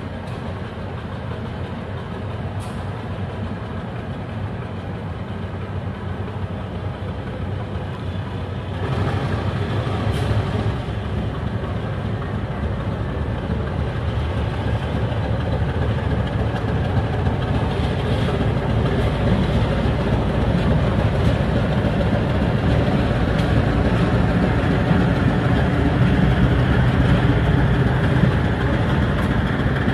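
Diesel locomotive engine running steadily, getting louder through the stretch, with a sudden step up in its low rumble about nine seconds in.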